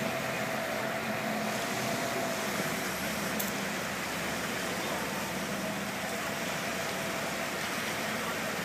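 Small waves washing in over a flat sandy beach in a steady rushing hiss, with a faint steady hum underneath.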